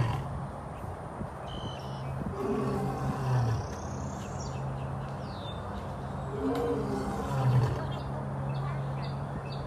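A big cat's deep, drawn-out calls, each about a second long, twice, about four seconds apart.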